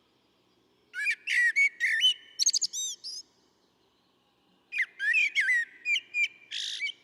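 A songbird singing two phrases of quick, pitch-sweeping whistled notes, each about two seconds long, with a pause of about a second and a half between them.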